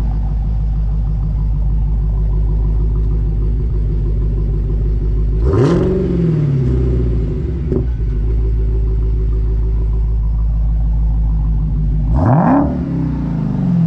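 Dodge Challenger SRT Hellcat's supercharged 6.2-litre Hemi V8 idling steadily and revved twice, about five and a half seconds in and again near the end. Each rev climbs sharply and falls back to idle.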